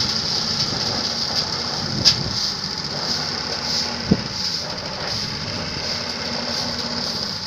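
Homemade rice threshing machine running steadily, a continuous mechanical rattle and hiss over a low hum, with two sharp knocks, about two and four seconds in.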